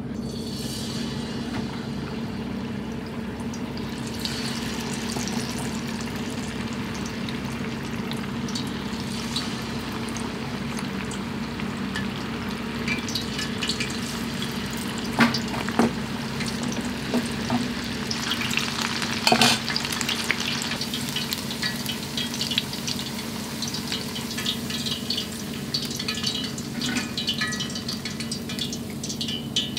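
Shrimp and corn kakiage tempura deep-frying in hot oil in a cast-iron wok: a steady sizzle with crackles, denser toward the end. A few sharp knocks come about halfway through.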